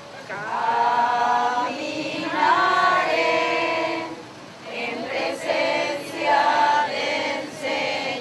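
A group of voices singing together without instruments, in sustained phrases with short breaks between them.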